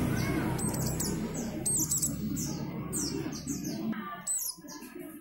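Captive white-eyes (pleci) chirping: a quick series of short, high, downward-slurred calls. Under them a low rumble of road traffic fades out after the first few seconds.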